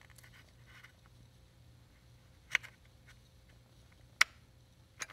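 Two sharp plastic clicks about a second and a half apart as the PCV ventilation hose and its clip are snapped back onto a new oil trap breather, over a faint steady hum.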